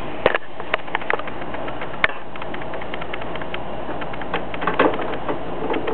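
A few sharp knocks as a handheld camera is set down, then a run of faint small clicks and ticks from a Phillips screwdriver working a screw, over a steady hiss.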